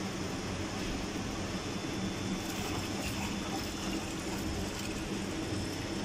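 Caustic cleaning solution pouring from the permeate and reject return hoses into a clean-in-place tank, churning and foaming, over the steady hum of the circulation pump. The flow is constant, with no breaks.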